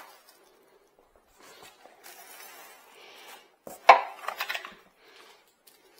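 Unpacking: plastic packaging rustles, then a sharp knock about four seconds in, followed by a short clatter of hard parts being handled and set down.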